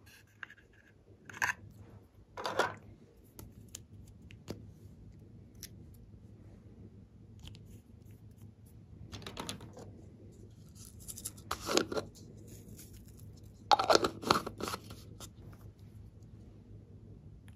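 Hands handling small craft items, a paper card and a small cosmetic tube, over a slime tray: a few scattered short rustles, clicks and scrapes, the loudest a couple of crunchy bursts about two thirds of the way through.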